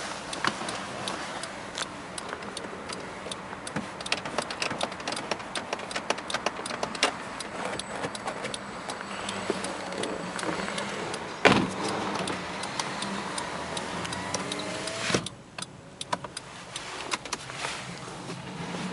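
A string of small irregular clicks and knocks inside a car's cabin, with one loud knock about eleven and a half seconds in and a faint rising whine between about ten and fifteen seconds in.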